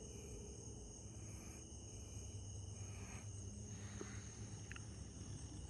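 Night insect chorus: crickets trilling steadily at several high pitches at once, over a low steady rumble, with a few faint ticks in the second half.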